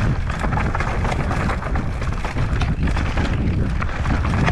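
Wind buffeting the microphone while riding a mountain bike downhill, mixed with a steady clatter of tyres and bike over a rough, rocky trail.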